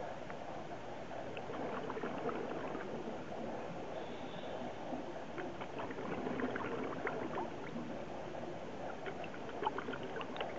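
Muffled underwater noise picked up through a dive camera housing: a steady low rush with scattered crackling clicks and a brief hiss about four seconds in.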